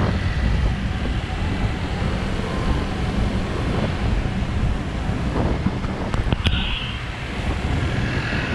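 Wind buffeting the microphone of a moving motor scooter, with engine and road noise underneath. A couple of sharp clicks and a short high-pitched beep come about six and a half seconds in.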